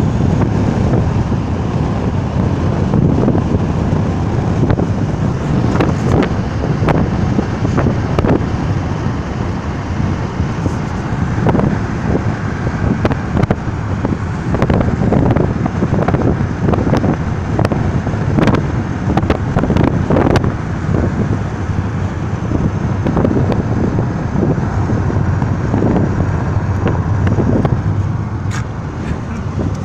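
Car driving along a road: a steady low rumble of road and wind noise, with frequent brief knocks and buffets.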